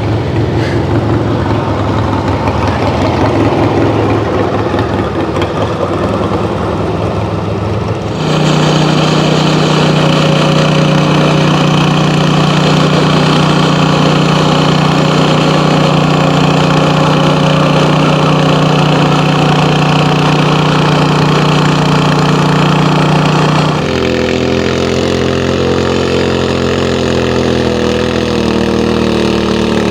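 Antique tractor engines running at a steady idle. The sound changes abruptly about 8 seconds in, to a louder, steadier engine tone, and again about 24 seconds in, as one engine gives way to another.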